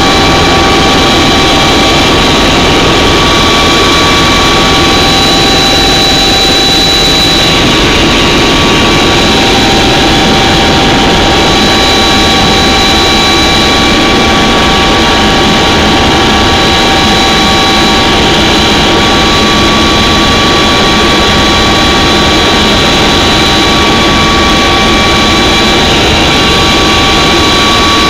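Loud cabin noise of a turbine helicopter in flight: a steady rushing drone with several high, steady whining tones from the turbine on top.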